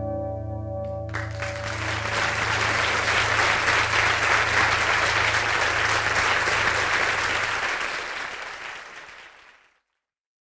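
The song's last notes ring out and stop about a second in. A theatre audience then applauds, and the applause fades out near the end.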